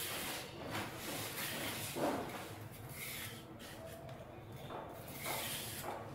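Skin being peeled by hand from giant taro stalks: several short tearing, scraping sounds about a second apart, the loudest about two seconds in.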